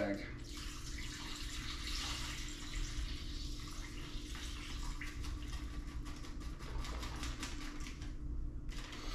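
Liquid brine poured from a bowl into a plastic zip-top bag of bluefish pieces: a steady pouring splash with many light clicks, stopping about a second before the end.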